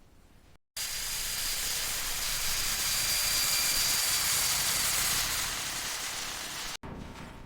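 A loud, steady hiss with a faint high whistle in it, starting abruptly about a second in and cutting off sharply near the end.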